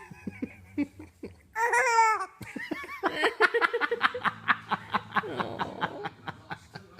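Hearty laughter: a short high squeal about a second and a half in, then a run of quick, rhythmic laughing lasting about three seconds.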